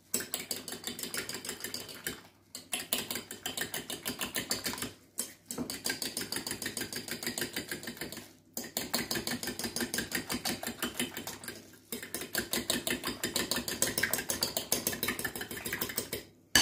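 Two eggs being beaten by hand in a ceramic bowl, the utensil clicking rapidly and evenly against the bowl. The clicking comes in runs of a few seconds broken by brief pauses.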